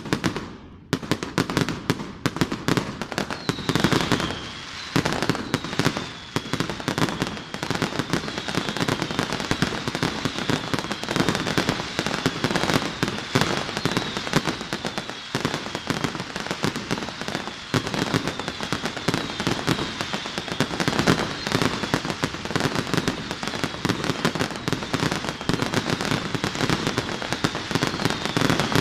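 Fireworks going off in a dense, continuous barrage of bangs and crackling, with a short high falling whistle repeating over it from a few seconds in.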